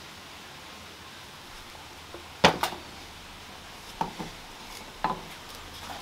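Kitchenware knocking on an enamel bowl and metal worktop: one sharp loud clink about two and a half seconds in, then two softer knocks about a second apart, over a quiet steady hiss.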